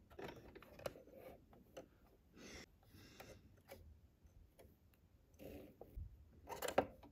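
Faint, scattered clicks and soft rustles of a Brother CS7205 sewing machine's automatic needle threader being worked by hand, thread drawn across its hook, with a louder rustle near the end.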